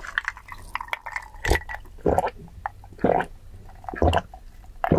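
Close-miked gulping of iced cola from a glass, about one loud swallow a second, with small clicks before the first gulp.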